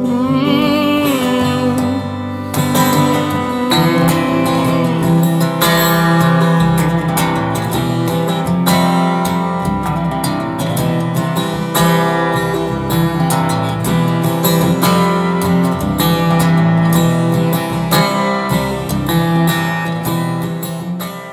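Electric guitar with a maple neck, Fender-style, played in an instrumental passage of a slow song, with chords and picked notes ringing over a sustained low note. A held, wavering note opens the passage, and the music fades near the end.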